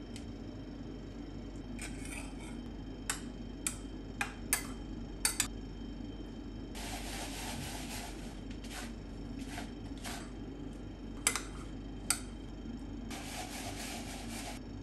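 Metal kitchen utensils clinking and scraping against pots and pans, in a couple of short runs of sharp knocks, with two hissing bursts of about a second and a half each, over a steady low hum.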